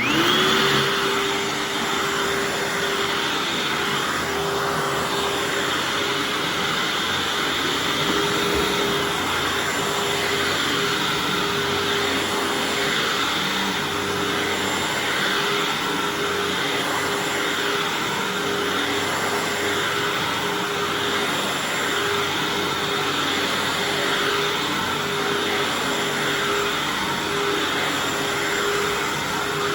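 Hoover Anniversary self-propelled upright vacuum switched on, its motor whining up to speed within the first second, then running steadily while it is pushed over thick carpet.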